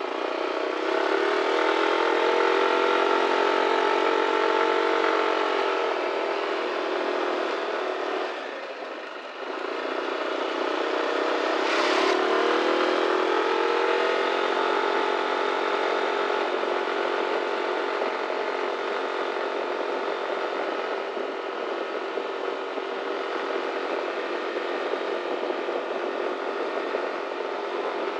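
Yamaha XMAX scooter engine running on the move, with wind rushing past. The engine note eases down around six seconds in, drops away briefly near nine seconds, then picks up again and runs steadily. There is one short sharp sound about twelve seconds in.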